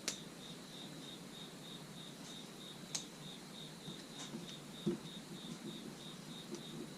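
An insect chirping steadily in a high, even pulse, about three chirps a second, with a few faint clicks and taps over it.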